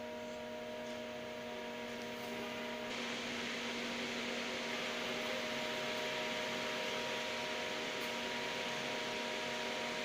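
Steady electrical hum and fan hiss of a Haas CNC lathe just switched on, its controller booting. About three seconds in, the hiss grows fuller and one of the held tones drops out.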